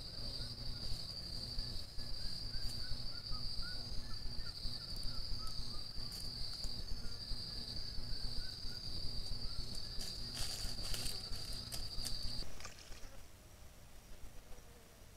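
An insect's steady, high-pitched buzz, likely a cicada or cricket, over a low hiss. The buzz cuts off suddenly about twelve seconds in, leaving a quieter hiss.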